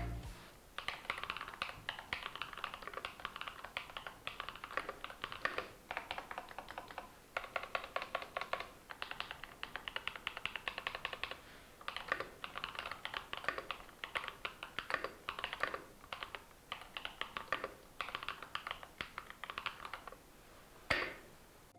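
Typing on a mechanical keyboard fitted with Gateron x NuPhy Mint switches: quick runs of clacking keystrokes with short pauses between them, and one louder stroke near the end.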